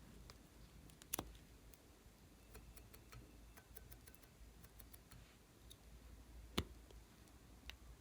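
Glossy slime being handled, giving faint scattered clicks and pops, with two sharper clicks about a second in and again at about six and a half seconds.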